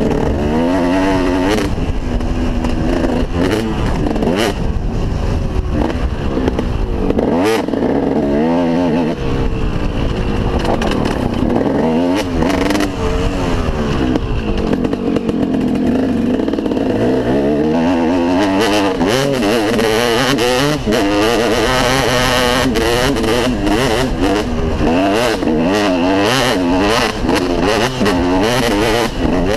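2003 KTM 250 SX two-stroke single-cylinder motocross engine, revved up and let fall again and again, its pitch climbing and dropping with each throttle and gear change. Sharp knocks and clatter come through it, mostly in the second half.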